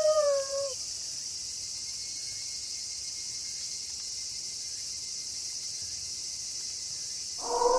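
A steady, high night chorus of crickets. A wolf howl ends with a downward slide in pitch in the first moments, and another wolf howl begins just before the end.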